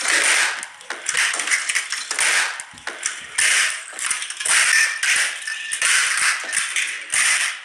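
Broken Christmas ornaments crunching and rattling on a tile floor, a quick irregular run of gritty, clattering noises.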